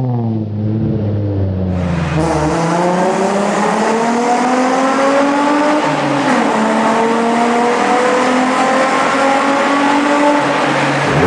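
Nissan 350Z's V6 engine and aftermarket exhaust under hard acceleration, the note climbing steadily in pitch. It drops briefly about six seconds in, as at a gear change, then climbs again.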